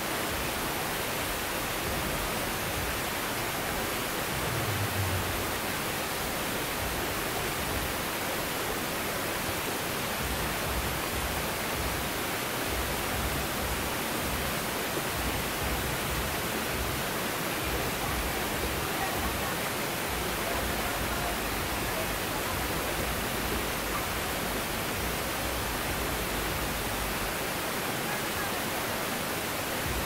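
Small waterfall and the rocky cascade below it, falling water making a steady, even rushing sound.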